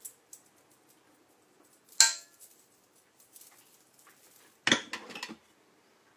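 Stainless steel stand-mixer bowl being handled: a sharp metallic knock with a brief ring about two seconds in, then a short clatter of several knocks and scraping against the bowl about three seconds later.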